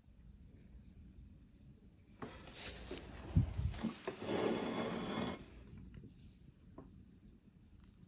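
Scraping and rubbing on a hard surface for about three seconds, with one soft low thump partway through: handling noise around the sliced cheesecake.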